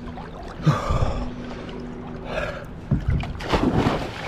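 Water splashing as a person enters the sea off a boat's swim platform, with the biggest splash in the last second or so. A faint steady hum runs underneath.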